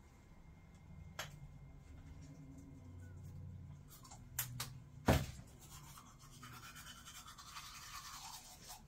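Teeth being brushed with a manual toothbrush, a faint scrubbing. A few small clicks and knocks come through, the sharpest about five seconds in.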